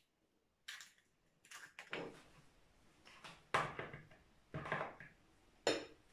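Kitchen utensils knocking and scraping against a plastic mixing bowl: about five short, sharp knocks roughly a second apart, the loudest about three and a half seconds in.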